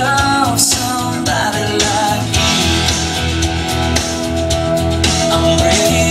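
Rock-style song playing: a singing voice over guitar, bass and drums with a steady beat.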